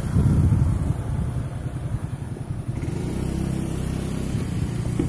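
Motorcycle engine running while the bike is ridden along the road, with a low rumble; the engine note settles into a steadier hum about three seconds in.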